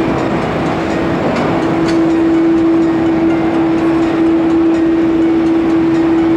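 Airbus A330-200 jet engines running at taxi idle: a loud, steady rush of noise with a steady droning tone through it. The tone weakens briefly and returns stronger about a second and a half in.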